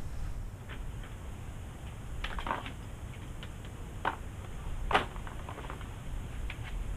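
Low wind rumble on the microphone, with a handful of short, faint knocks and splashes; the loudest comes about five seconds in. They come from a cast net and bait bucket being worked on a dock at the water's edge.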